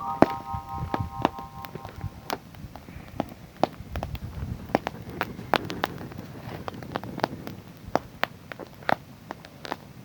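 Wood fire crackling, with sharp irregular pops and snaps over a low rumble. A steady tone of a few pitches at once stops about two seconds in.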